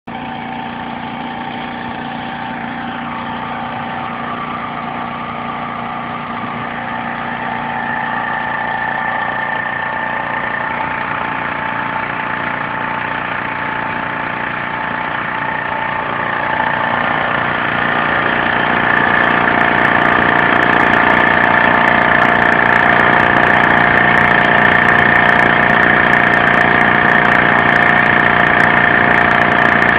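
Engine taken from a Spets 600–800 W petrol generator running steadily, turning a car alternator, with a constant whine over the engine note. It grows louder about two-thirds of the way in.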